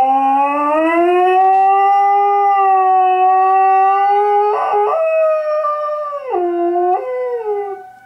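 Collie–Australian shepherd mix dog howling in one long, loud howl: it rises in pitch at the start, holds steady, breaks briefly about halfway, dips lower and climbs back near the end, then fades out. He is howling back at an air raid siren, whose steady tone runs faintly underneath.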